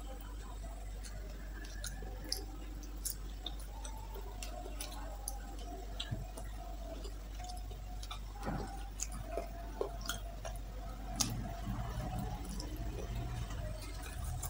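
Close-miked eating sounds: chewing and fingers mixing rice and chicken curry, giving scattered small wet clicks and smacks over a steady low hum.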